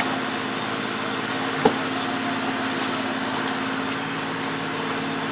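A boat engine running steadily at idle, with one sharp knock about one and a half seconds in.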